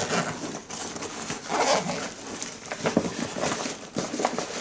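Zipper on a brand-new nylon bowling bag being worked open, with the stiff fabric rustling and crinkling as hands pull the top compartment open in irregular tugs.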